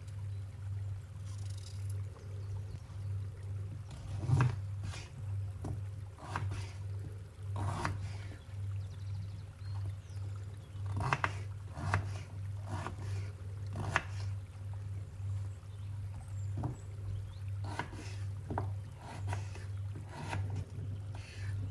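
A kitchen knife cutting through cooked beetroot on a wooden cutting board: irregular sharp taps as the blade meets the board, starting a few seconds in. Under them runs a low hum that pulses about twice a second.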